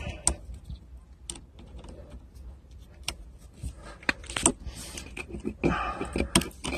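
Irregular small clicks, taps and rattles of plastic conduit clips and screws being handled and pushed into place, with a cluster of clicks about four seconds in and another near the end.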